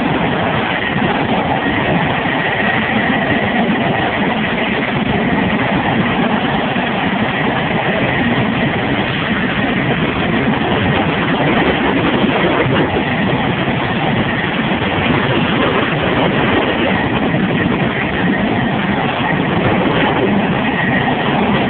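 F-16 fighter jet's engine running at idle on the ground: a steady, loud roar with a faint high whine that holds at one pitch.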